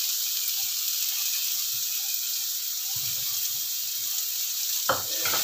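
Oil sizzling steadily in a wok as spice paste fries, a continuous hiss, with one sharp knock near the end.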